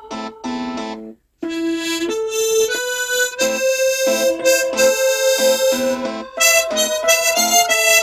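Harmonica playing a melody with long held notes over a backing accompaniment. The music cuts out briefly just over a second in, then the harmonica comes back in.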